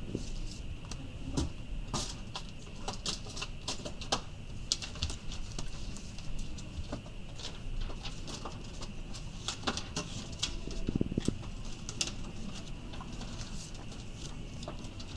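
Banknotes and paper being handled on a counter: a run of light, irregular rustles, taps and clicks over a faint steady high hum.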